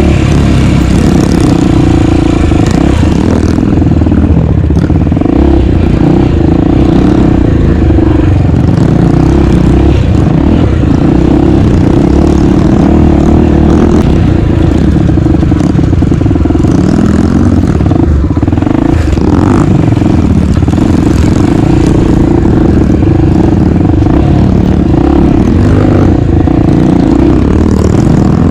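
A 250 cc enduro motorcycle engine running continuously while being ridden, loud and fairly steady, its pitch wavering slightly as the throttle changes.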